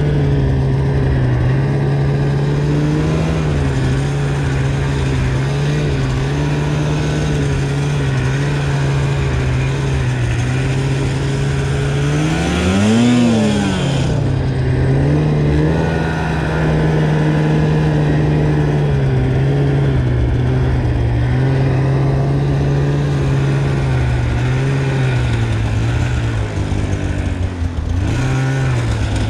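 Snowmobile engine running under load as the sled ploughs through deep powder snow, holding fairly steady revs with small rises and dips. About halfway through it revs up sharply and falls back, and near the end the revs waver.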